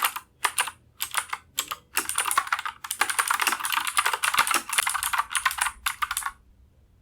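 Keychron K10 mechanical keyboard with clicky blue switches being typed on: rapid clicky keystrokes, broken by short pauses early on, then a steady run that stops about six seconds in.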